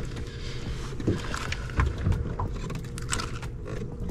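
Wind rumbling on the microphone of an open fishing boat, with water lapping at the hull and a few light knocks and clicks.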